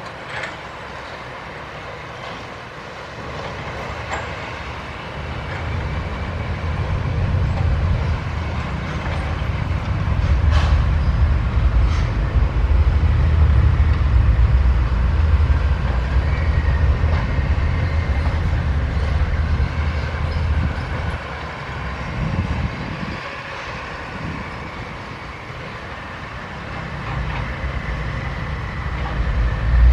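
Sany 135F excavator's diesel engine running under load while digging soil, its rumble swelling and easing as the hydraulics are worked, with two sharp knocks about ten and twelve seconds in.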